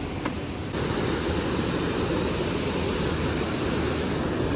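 Steady rumbling noise that sets in abruptly about a second in and holds evenly.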